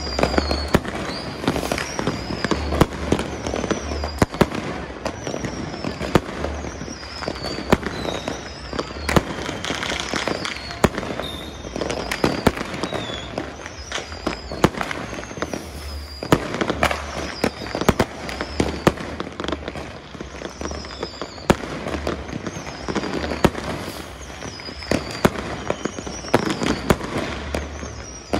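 Fireworks and firecrackers going off near and far in a dense, continuous run of bangs and crackles, with falling high whistles repeating every second or two.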